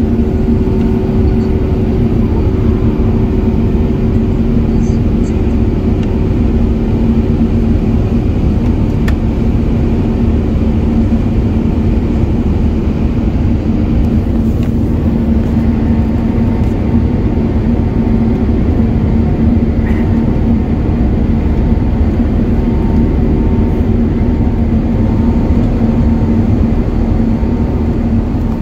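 Engine and airflow noise inside the cabin of an Emirates Airbus A380 in the climb after take-off: a loud, steady rushing drone with a constant low hum running through it.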